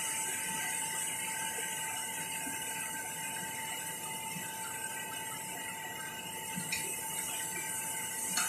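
Steady hiss from the pot cooking on a gas stove, with a faint steady whine. Near the end come a couple of light knocks as a wooden spoon stirs the pot.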